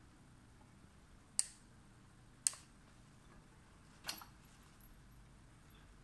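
Three sharp clicks about a second apart, the third with a short ring, from hand work on a power wheelchair's frame with a screwdriver, over faint room tone.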